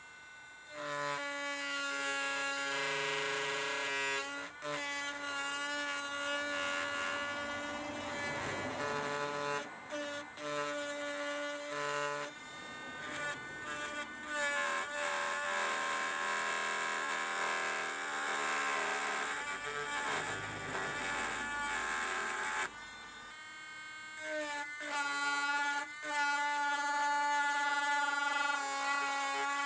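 Small electric rotary engraving tool whining steadily as its pointed bit cuts into stone, the pitch shifting a few times and the whine dropping out briefly now and then.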